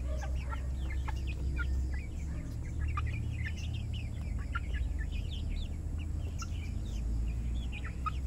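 A flock of Rhode Island Red hens clucking, many short, quick calls overlapping as they peck at feed, over a steady low rumble.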